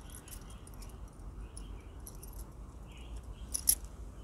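Kitchen knife cutting pudachi wadi on a wooden board: a brief sharp double click near the end, over a low steady background hum with faint high chirps.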